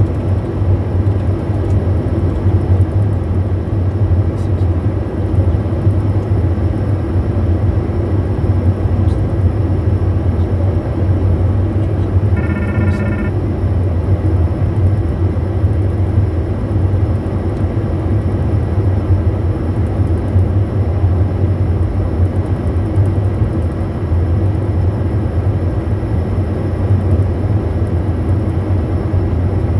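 Steady flight-deck noise of a Bombardier Challenger 350 jet on approach: rushing airflow and the hum of its twin turbofans over a strong low drone. About halfway through, a brief electronic tone sounds for under a second.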